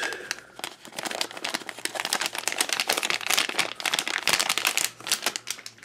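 Plastic blind-bag packet crinkling as it is torn open and handled, a dense run of irregular crackles that stops shortly before the end.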